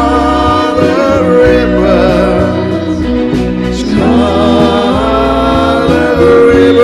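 Live pop band playing a ballad: a male lead voice holds long notes with vibrato over sustained keyboards and a bass line.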